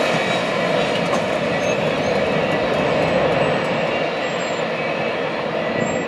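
Empty covered hopper cars of a freight train rolling on the rails: a steady wheel-and-car rumble that eases a little near the end as the train moves away.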